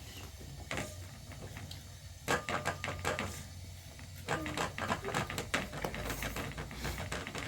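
Rapid clicks and light knocks from something being handled, in two quick runs: the first a little over two seconds in, the second from about four to six seconds, over a low steady hum.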